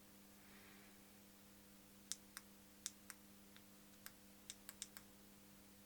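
A run of small, sharp clicks, about ten of them at irregular spacing over roughly three seconds, over a faint steady hum.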